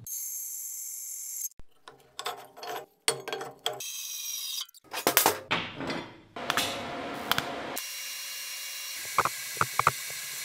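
A run of steel-fabrication sounds. A metal-cutting bandsaw runs with a high ringing at the start, and steel plates knock and clatter as they are handled. Then a welding arc gives a steady hiss, with a few crackles, for the last two or three seconds.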